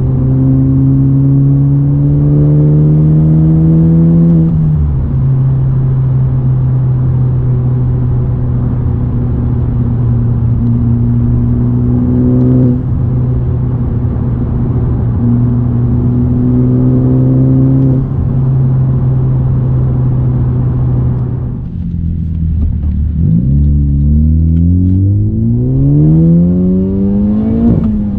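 Honda Civic Type R FK8's turbocharged 2.0-litre four-cylinder heard from inside the cabin through a J's Racing 70RS cat-back exhaust and RV6 front pipe. The revs climb gently, drop with a gear change about four seconds in, then hold a long steady cruise drone. Around twenty-two seconds the throttle lifts, then the engine pulls hard with rising revs and shifts up again just before the end.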